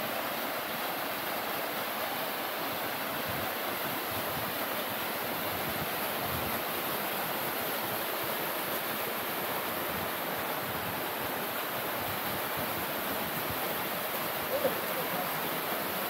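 Steady rush of water from a rocky mountain stream's waterfall and cascades.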